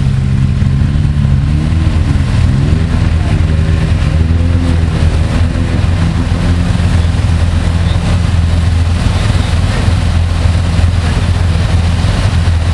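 Polaris RZR side-by-side's engine revving as it ploughs through a muddy water hole, its pitch rising and falling a few seconds in and then holding steady under throttle. Water splashing and sloshing around the wheels grows louder in the second half.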